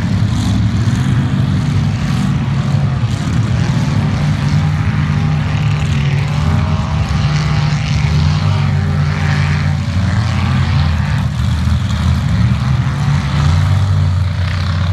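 Mud truck on big tyres running its engine hard through a mud pit: a loud, steady drone whose note shifts a couple of times as the revs change.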